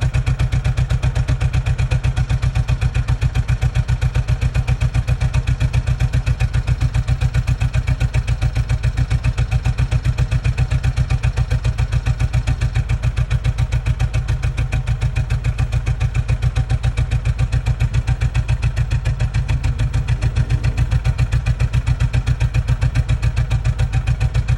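A 1990 Suzuki Sidekick/Geo Tracker's 1.6-litre four-cylinder engine idling with a steady pulsing beat, running rough with the misfire the owner is trying to trace.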